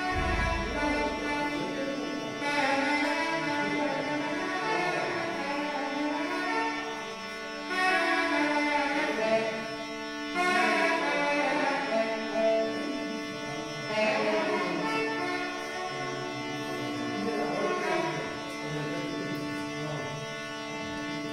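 South Indian classical instrumental music: a melody that bends and weaves over a steady drone.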